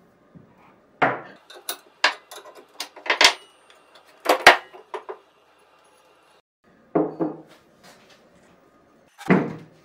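Irregular metal clanks and clinks of hand tools and parts as the end cap of an old electric motor is worked off with a three-jaw gear puller and wrenches, and the cap and tools are set down on the bench. The knocks come in small clusters with short pauses between, the loudest about four and a half seconds in.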